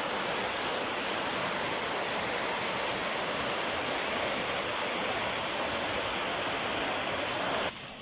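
Rushing mountain stream cascading over rocks and small falls: a steady, full rush of water. Near the end it drops abruptly to a quieter flow of water.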